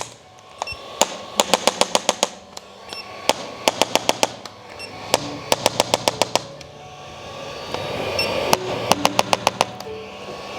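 Chiropractic impulse adjustor firing repeated trains of sharp clicking thrusts, several bursts of about five to eight rapid clicks at roughly ten a second, with short pauses between bursts.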